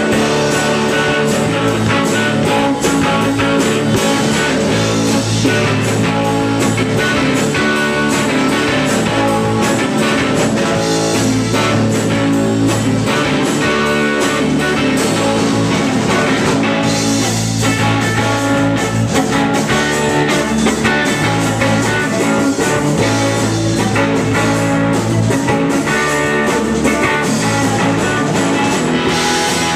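Live rock band playing a song at full volume: electric guitar, bass guitar and a drum kit, with the vocals buried low in the mix.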